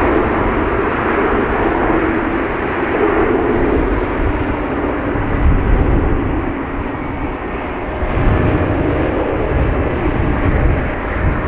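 Steady jet aircraft noise at an airfield: a wavering drone with a low rumble underneath.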